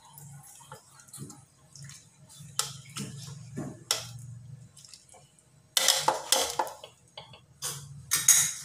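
Metal ladle stirring soup in a stainless steel pot, clinking against the pot's sides as the broth sloshes. Louder metallic clattering comes in two bursts in the second half.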